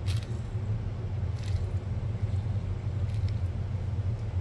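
A steady low hum, with a few faint light clicks over it.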